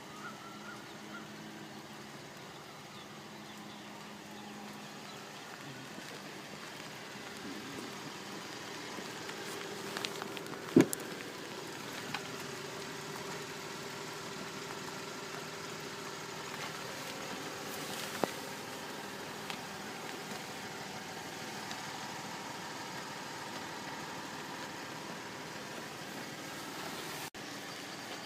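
A vehicle engine idling steadily, with one sharp click about eleven seconds in and a fainter one a few seconds later.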